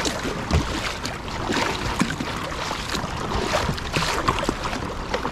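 Double-bladed kayak paddle dipping and pulling through the sea, with many small splashes and drips of water off the blades.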